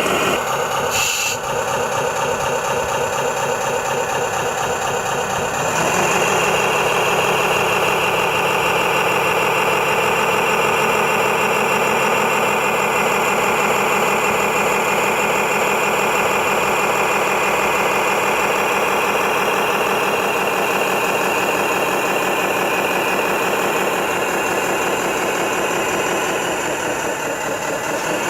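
Engine sound of a radio-controlled model truck, running steadily, then stepping up louder and higher-pitched about six seconds in as it drives under load, and easing slightly near the end.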